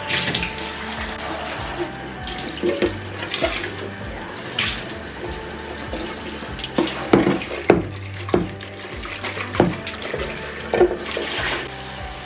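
Water running from a tap in spurts, with a series of sharp knocks and clatters of objects being handled, over background music.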